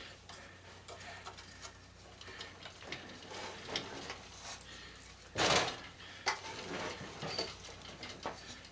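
Light clicks and taps of hand tools and small metal parts being handled while a sander is taken apart, with one louder, brief scraping clatter about five and a half seconds in.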